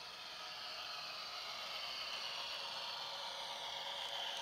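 HO scale model train rolling along the track, a steady high-pitched hiss of wheels and motors that grows a little louder as the locomotives come closer.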